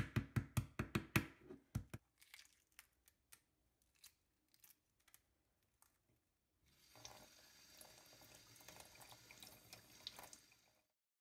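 A hard-boiled egg rapped quickly against a countertop, a rapid run of about a dozen knocks as its shell cracks, followed by scattered small crackles of shell being peeled away. About seven seconds in, a kitchen tap runs steadily for about four seconds as the peeled egg is rinsed under the stream, then stops.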